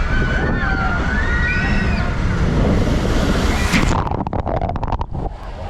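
Loud rumbling noise with wind buffeting the microphone and a few faint wavering squeals. About four seconds in it changes abruptly to a quieter stretch of scattered clicks and knocks.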